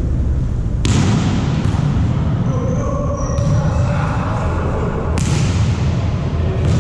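Volleyball being struck several times, sharp slaps and thuds with a short echo, over a steady low rumble and background voices.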